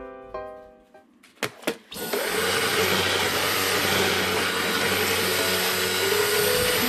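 Two sharp clicks, then a cordless stick vacuum cleaner starts up about two seconds in and runs steadily as it is pushed over a tiled floor. Faint piano music comes back in near the end.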